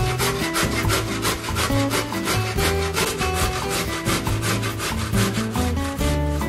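Raw zucchini being grated on a stainless-steel box grater: quick, regular rasping strokes, one after another, with music playing underneath.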